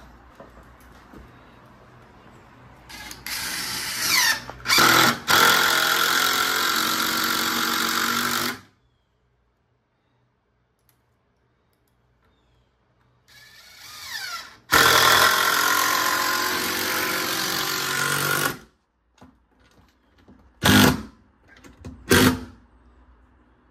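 Cordless power driver sinking screws through a door jamb at the hinge. It makes two long runs of about five and four seconds, separated by silence, then two short bursts near the end to snug the screws down.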